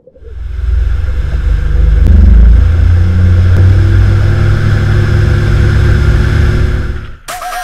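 Motorboat engine running under way, a steady low drone that fades in over the first second and cuts off suddenly near the end.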